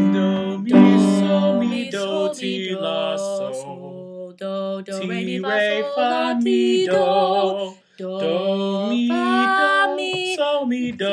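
A woman and a man singing together a cappella, finding the starting pitch of their song, with held notes that waver and slide; they break off briefly about eight seconds in.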